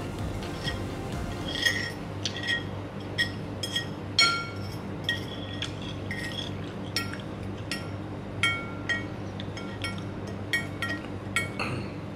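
Metal fork and spoon clinking and scraping against a bowl as noodles are scooped up: an irregular run of short, ringing clinks, the loudest about four seconds in.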